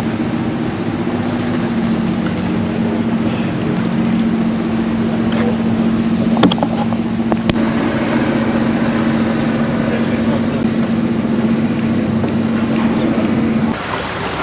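An engine running at a steady speed with an even hum, a couple of sharp clicks partway through, and the hum cutting off suddenly near the end.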